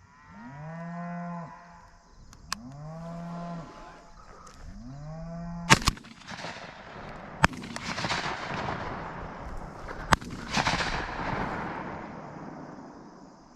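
A cow moos three times in long, low calls. Then shotgun shots are fired at incoming doves: two in quick succession about six seconds in, another about a second and a half later, and one more near ten seconds, over a rushing noise.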